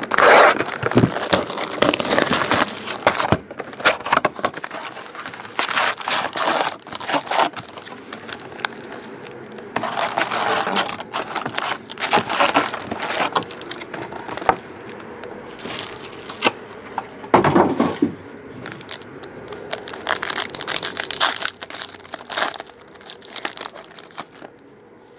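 Plastic shrink wrap being slit and pulled off a trading card box, then foil card packs being taken out and handled: irregular crinkling and rustling with occasional clicks.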